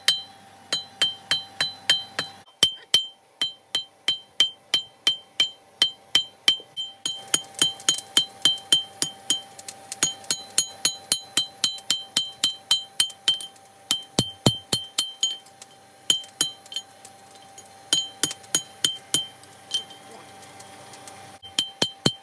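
Hand hammer striking a red-hot steel keris blade on an anvil, about three blows a second in runs broken by short pauses, each blow ringing with a high, clear tone.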